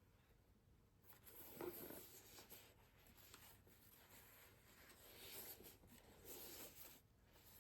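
Faint rustling and scraping of packaging being handled, in a few soft swells over near-silent room tone.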